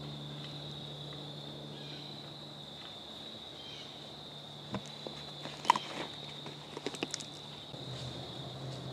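A steady high drone of insects in the woods, with a few sharp clicks and crackles between about five and seven seconds in.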